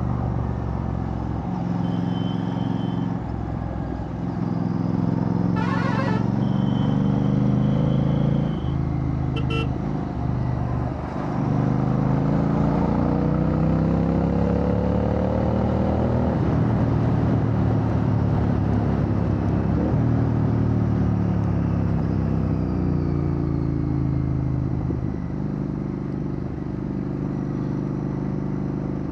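Royal Enfield Bear 650's parallel-twin engine through a Red Rooster Performance aftermarket exhaust while riding, the revs rising and falling several times through gear changes. Vehicle horns toot a few times in the first ten seconds or so.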